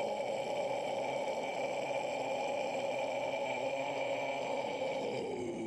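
Steady droning whir of an intro logo sound effect that drops in pitch and fades near the end.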